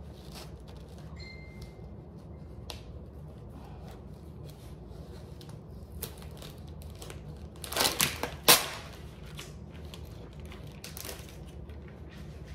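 A prosciutto package being opened and handled: scattered short, sharp clicks, loudest in a brief cluster about eight seconds in, over a steady low hum.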